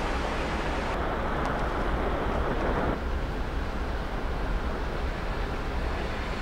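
Steady low rumble and hiss of ambient noise beside a moored warship, with the sound shifting about three seconds in.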